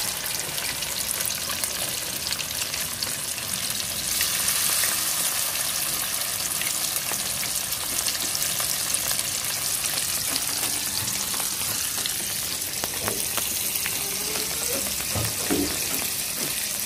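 Battered squid rings deep-frying in hot oil in a wide metal wok: a steady crackling sizzle, a little louder about four seconds in.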